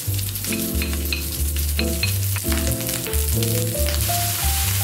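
Rice frying in a metal pan over a gas flame: a steady sizzle, with light clicks from stirring. Background music with a melody and bass line plays along.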